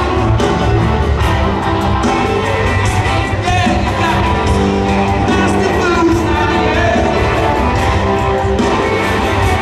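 Live rock band playing in a stadium: electric guitars and drums with a male lead vocalist singing over them, heard through the PA from high in the stands.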